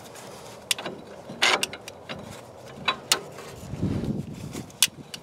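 Metal U-bolt hardware being fitted onto a leaf-spring axle: a handful of separate metal clicks and clinks, one ringing briefly, with a short low rustle of handling about four seconds in.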